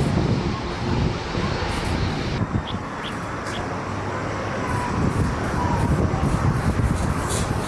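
Jet airliner engine noise: a steady low rumble with a broad rushing hiss.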